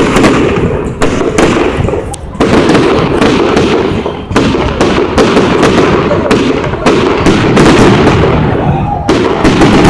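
Fireworks going off in a dense barrage: loud, rapid, overlapping bangs and crackles, several a second with hardly a pause.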